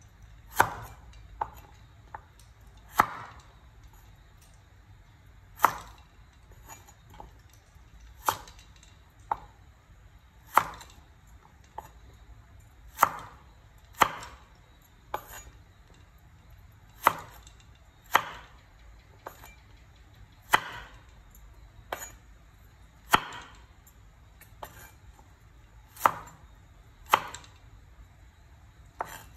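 Large kitchen knife chopping carrot pieces on a wooden cutting board: single, unhurried chops about every one to two seconds, each a sharp knock of the blade on the wood, with fainter taps between.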